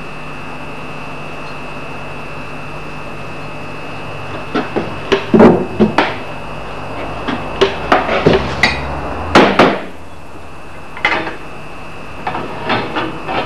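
Irregular metal knocks and clatters of tools being handled and a file-holder bar being set onto a steel axe-filing jig, starting about four seconds in, over a steady hum with a faint high whine.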